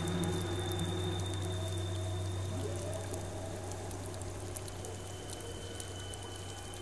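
Ambient soundtrack: a steady low drone with a few long held tones, over trickling, dripping water.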